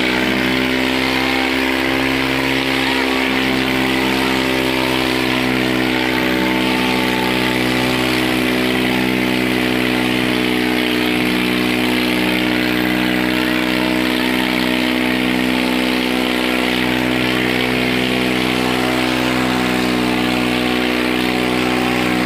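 Swaraj 744 FE tractor's three-cylinder diesel engine running hard at steady high revs under heavy load, pulling through deep sand; the pitch holds level throughout.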